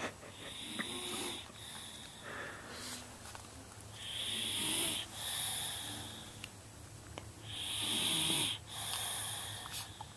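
A young girl snoring in her sleep: three slow breaths about three and a half seconds apart, each with a throaty rattle and a hiss.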